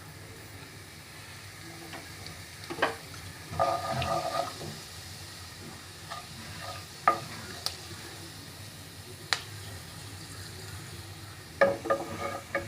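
Cumin seeds sizzling in hot oil in a pan, with a spoon stirring and clicking against the pan now and then.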